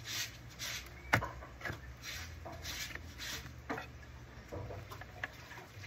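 Screwdriver and screw working into an old muzzle-loading rifle's wooden stock and metal fittings: short rubbing scrapes broken by a few sharp metallic clicks.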